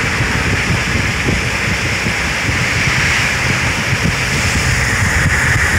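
Steady wind rush on the microphone with road rumble from a car driving at speed.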